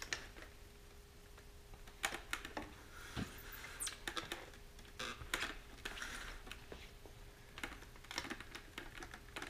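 Hands pressing and smoothing an adhesive reflective decal stripe onto a rocket's airframe tube: scattered light clicks and brief rubbing sounds, coming at irregular times.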